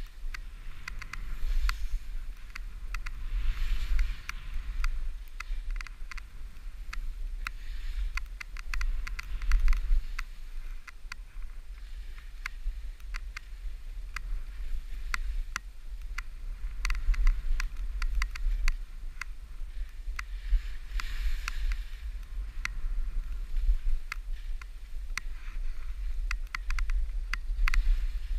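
Skis running over snow: a scraping hiss of the edges with many small clicks and crackles, swelling now and then, over a steady low wind rumble on the helmet camera's microphone.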